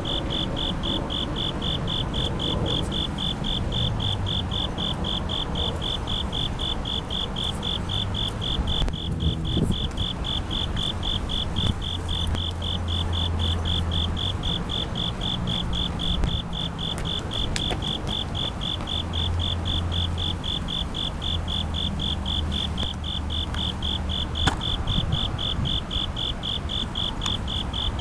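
Bell crickets (suzumushi) chirping in a steady, evenly repeated high-pitched trill, over a low rumble of distant city traffic.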